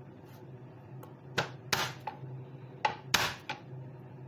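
Kitchen knife striking anchovies against a plastic cutting board: about five sharp knocks, the loudest about a second and a half in, just after, and about three seconds in. A faint steady hum runs underneath.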